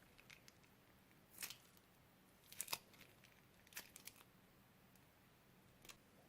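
Short crinkling handling noises of plastic bags, in four brief bursts about a second apart.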